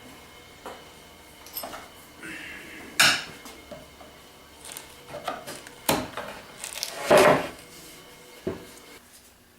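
Irregular knocks and clatter of parts being handled and taken apart, with sharper strikes about three seconds in and again around six to seven seconds in.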